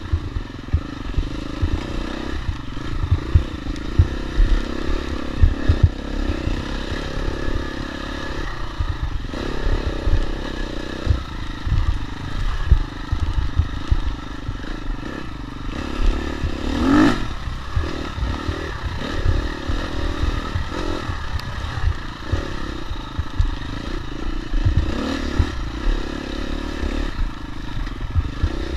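Dirt bike engine revving up and down as it is ridden hard along a rough wooded trail, with a brief sharp rev a little past halfway. Low thumps and clatter from the bike bouncing over the ground run under it.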